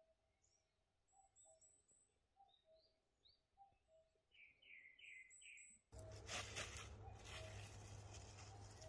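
Faint woodland birdsong: high chirps and a low two-note call repeated about once a second. About six seconds in, a louder steady noise with a few clicks comes in, and the low call carries on under it.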